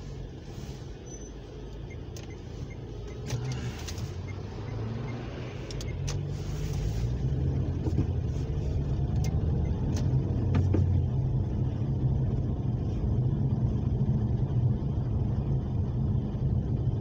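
Car interior noise while driving: low engine and tyre rumble that grows louder over the first several seconds as the car picks up speed, then holds steady, with a few faint clicks.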